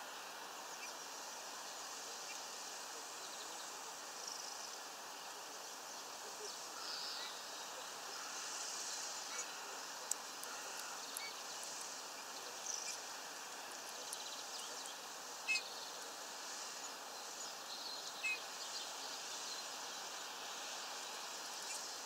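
Steady outdoor hiss with faint, short, high bird chirps scattered throughout. A few sharp clicks stand out: one about ten seconds in, then two more later.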